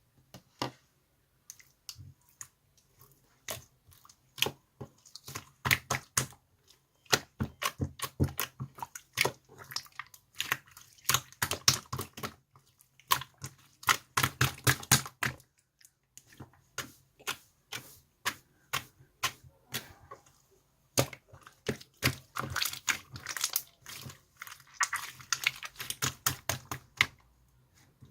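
Slime being squeezed and kneaded by hand, making rapid sticky clicks and pops in runs of several seconds with brief pauses between them.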